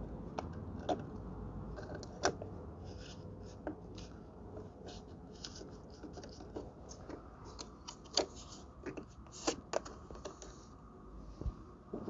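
Fingers handling a metal weatherproof outlet cover and a small screw: scattered light clicks and scrapes, with a few sharper metal clicks about two, eight and nine and a half seconds in.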